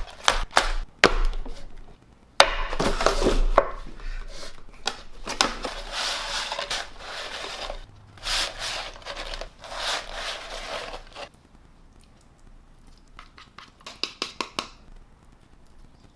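Food packaging being handled, rustling, crinkling and tearing for several seconds, with sharp clicks and taps near the start and again near the end.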